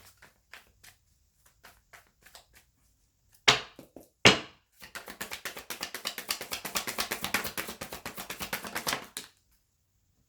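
Tarot cards being handled: a few light card clicks, two sharp taps near the middle, then a fast, even run of flicking ticks for about four seconds as the deck is thumbed or shuffled through.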